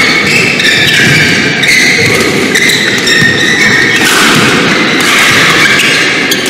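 Badminton rally on an indoor court: shoes squeaking in short, repeated squeals on the court mat, with thuds of footwork and racket hits on the shuttlecock.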